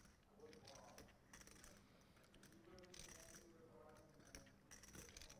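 Near silence: faint table ambience with a few soft, scattered clicks, typical of poker chips being handled at the table.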